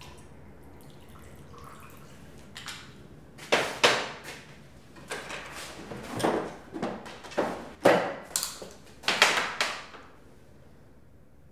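Footsteps and handling noises of a person moving about a room: a run of about a dozen irregular knocks and scrapes that starts a couple of seconds in and stops a second or two before the end.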